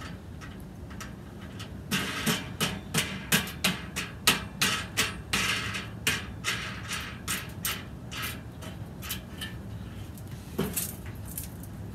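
Quick metallic clicking and scraping, a few strokes a second, as a nut is worked by hand onto the thermometer's threaded stem through a stainless steel grill ring. It starts about two seconds in and grows fainter, with one more click near the end.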